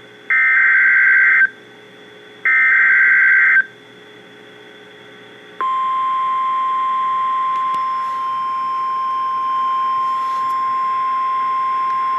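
NOAA Weather Radio emergency alert: two bursts of SAME header data tones, each about a second long, the second ending nearly four seconds in, with radio hiss between them. About five and a half seconds in, the steady 1050 Hz warning alarm tone starts and holds, signalling that a warning, here a severe thunderstorm warning, is about to be read.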